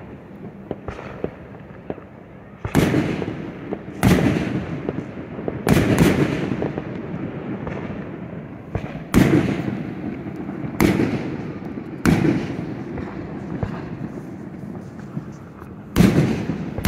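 Aerial fireworks shells bursting one after another: about eight loud booms, each trailing off in a long rumble. Small pops and crackles come in the first couple of seconds.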